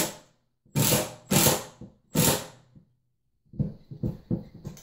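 Milwaukee cordless driver giving three short trigger bursts to seat a 2.5-inch cabinet screw into a wall stud. A few lighter knocks follow near the end.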